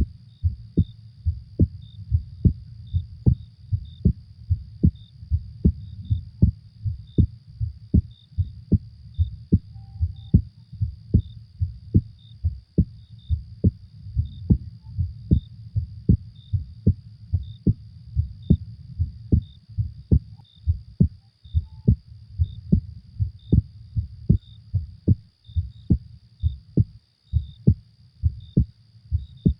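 Human heartbeat, a steady lub-dub of low paired thumps. Behind it, a faint, high, evenly repeating chirp from a night-ambience track.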